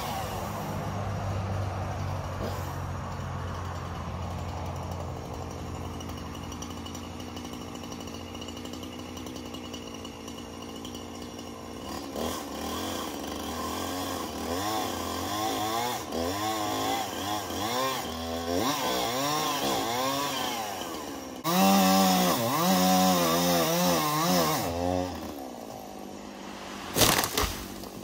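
Chainsaw running steadily, then revving up and down over and over as it cuts through the pine trunk to take the top out. It is loudest for a few seconds after the middle. A few sharp knocks near the end, as the cut top comes off.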